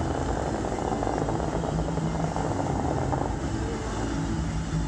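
The Dubai Fountain's water jets shooting up and spraying down into the lake: a steady, dense rushing noise.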